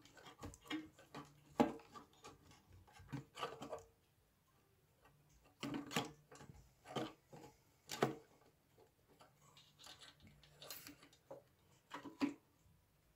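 Irregular small clicks, taps and rubbing as multimeter test probes and leads are handled and touched against a battery pack's cell terminals, in scattered clusters with a quieter stretch in the middle.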